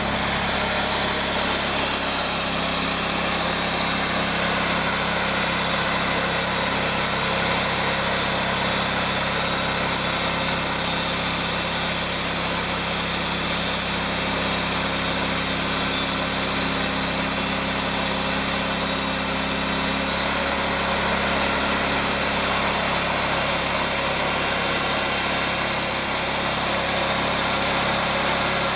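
Wood-Mizer portable band sawmill running steadily, its engine and band blade making a continuous loud mechanical drone.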